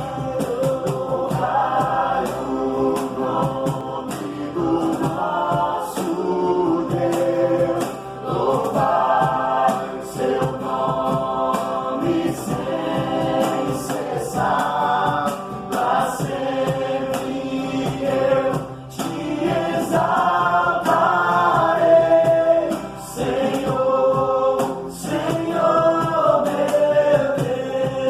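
Worship song sung by a group of voices in long held notes, over a steady musical accompaniment.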